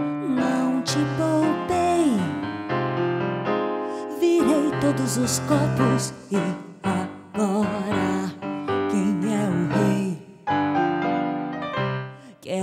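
A woman singing a slow, dramatic tango with vibrato over piano accompaniment, her voice sliding down in pitch about two seconds in.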